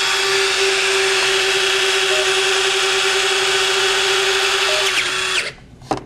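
Small electric motor whirring steadily at one even pitch, with a faint short beep about every two and a half seconds. The whirr cuts off about five and a half seconds in.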